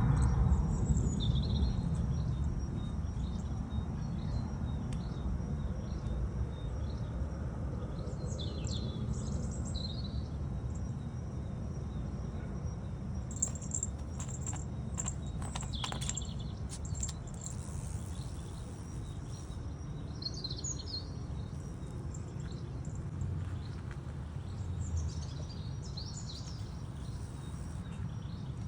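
Small birds chirping in scattered short bursts, on and off, over a steady low background rumble.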